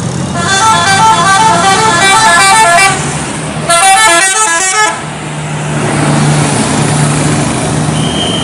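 Indonesian bus 'telolet' horn, a set of musical horns playing a fast tune of rapidly changing notes, in two bursts: a longer one of about two and a half seconds starting about half a second in, then a shorter one of about a second. After that the bus engine runs with a steady low hum.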